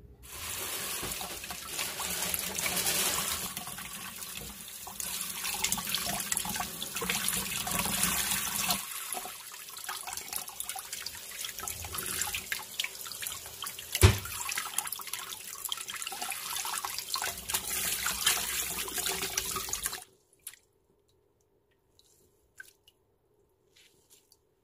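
Kitchen tap running, the stream splashing over a mushroom held under it and into a basin of water in a steel sink. One sharp knock about fourteen seconds in, then the water cuts off suddenly about twenty seconds in, leaving a few faint ticks.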